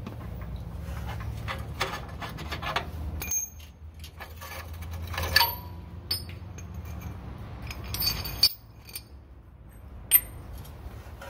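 Metal clinks and rattles from bolts and hand tools being worked loose from a lower control arm, with a few sharp, ringing metal-on-metal clinks.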